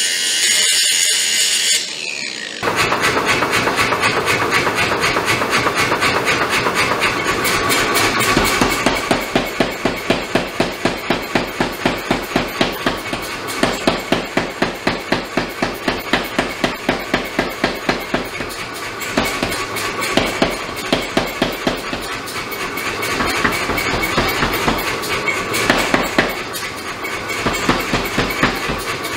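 Angle grinder cutting steel for about two seconds. Then a power hammer pounds a glowing damascus steel billet in rapid, rhythmic blows, about four a second, coming in bursts that swell and ease.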